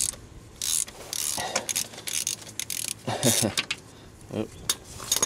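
Socket ratchet clicking in short spurts while turning out a 15 mm starter mounting bolt, with scattered metal clicks and clinks.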